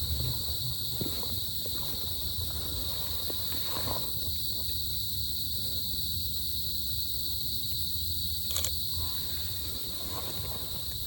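Steady high-pitched drone of a forest insect chorus, with a low rumble and scattered small rustles and ticks underneath. A single sharp click sounds about eight and a half seconds in.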